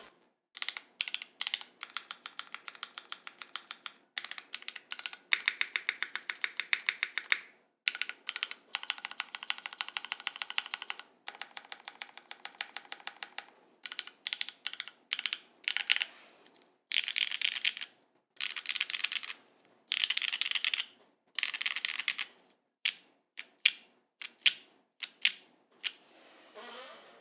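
Custom mechanical keyboard with lubed and filmed Cherry MX Black linear switches on a polycarbonate plate, O-ring mount, and GMK keycaps, its keys pressed in quick runs of clacks with short pauses between. The runs cover the modifier keys, including the TX-stabilized long keys, and then the alpha keys.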